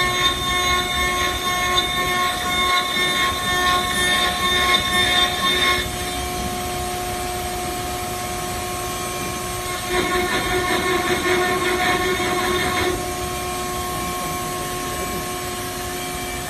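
Router spindle of a CNC wood lathe running with a steady multi-tone whine while its end mill cuts slots into a curved wooden chair leg. The cutting comes in two louder, rougher stretches: up to about six seconds in, and again from about ten to thirteen seconds in.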